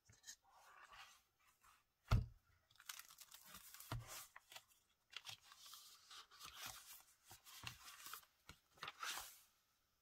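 Paper rustling and crackling as a handmade journal is opened and its pages handled, with a sharp knock about two seconds in.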